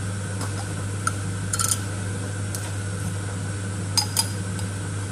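A few light clinks and taps of kitchenware, including a short rattle of them about a second and a half in, over a steady low hum.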